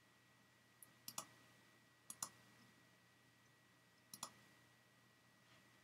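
Computer mouse clicking a handful of times, mostly in quick pairs, against near silence.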